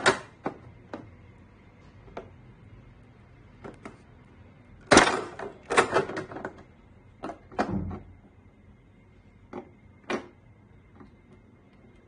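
Thin plastic bottle crackling and clicking in short, irregular bursts as a hot soldering iron is pushed through its wall to melt holes. The loudest bursts come about five to six seconds in.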